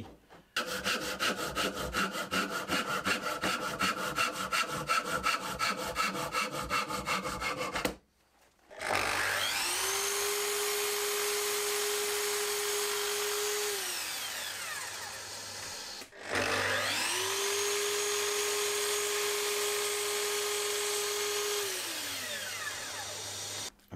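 Japanese pull saw cutting wood in quick, even strokes for about eight seconds. Then a Festool Kapex sliding mitre saw makes two short runs: each time the motor spins up, runs steadily with a whine and winds down.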